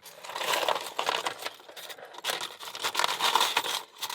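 Rustling and crinkling with small clicks in several bursts, as lockpicking tension tools are rummaged through and picked out by hand.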